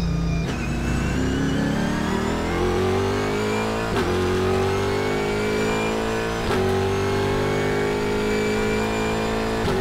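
Cadillac CTS-V.R race car engine heard from inside the cabin, accelerating hard out of a slow corner under full throttle. Its pitch climbs steadily and drops sharply with an upshift about four seconds in, another at about six and a half seconds, and a third near the end.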